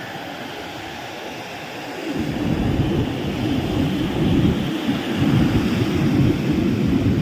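Sea surf washing on a beach as a steady rushing hiss. From about two seconds in, heavy low buffeting from wind on the microphone is added, and it stops abruptly at the end.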